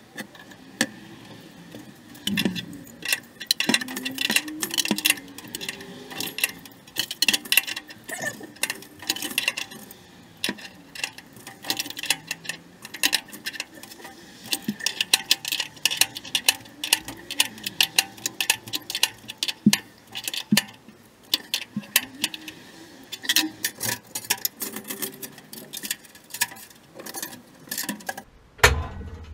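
Rapid, irregular metallic clicking and tapping as flex water connectors are handled and fitted onto the threaded fittings at the top of a water heater, with a heavier knock near the end.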